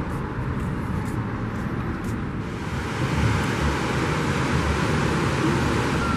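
Steady road noise of a moving car: a low rumble with a hiss over it, a little louder from about halfway through.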